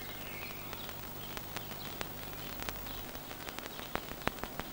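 Quiet stretch of soundtrack from an RCA CED videodisc, a steady hiss with scattered clicks and pops that come more often in the last second or two. A low hum underneath stops about three seconds in.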